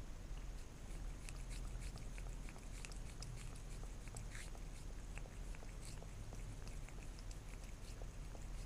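A cat licking jelly out of a small plastic cup: a quick, irregular run of small wet tongue clicks and smacks.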